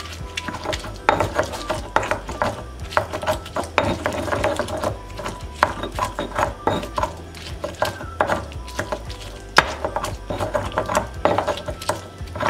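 Stone pestle grinding roasted serrano chiles in a volcanic-stone molcajete: an irregular run of gritty scrapes and small knocks of stone on stone as the chiles are crushed into garlic and coarse salt.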